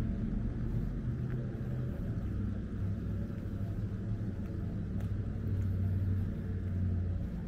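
Steady low rumble of a motor vehicle's engine, wavering slightly in strength.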